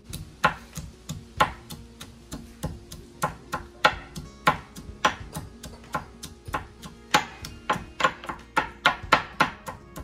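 Marble pestle pounding garlic, ginger and scotch bonnet pepper in a marble mortar: a run of sharp strikes, about two a second at first and quickening to about four a second near the end.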